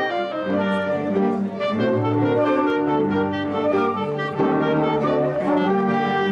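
Dance orchestra playing a tune, with brass instruments prominent.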